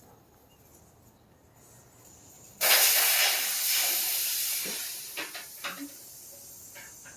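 Air suspension bags on a 1965 Impala frame being aired out all together: a sudden loud hiss of air venting starts about two and a half seconds in and fades over a few seconds. A few light knocks come as the hiss dies down.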